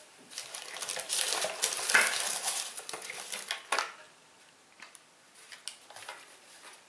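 Packaging and products handled on a tabletop: rustling and clattering with sharp clicks and knocks for about three and a half seconds, then only a few faint taps.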